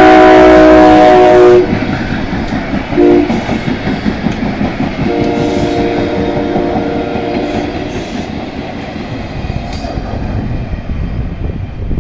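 SEPTA Silverliner IV electric commuter train sounding its multi-note horn as it passes: a very loud long blast ending about a second and a half in, a short blast at about three seconds, then a longer, quieter blast from about five to eight seconds in. This is the close of the long-long-short-long grade-crossing signal. Steady rumble of wheels on rail runs underneath as the train goes by.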